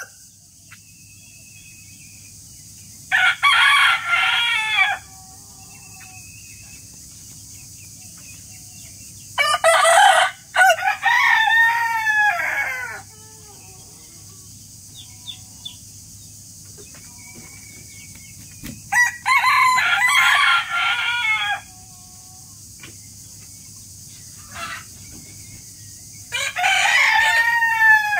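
Rooster crowing four times, each crow lasting about two seconds with long gaps between, over a faint steady background hum.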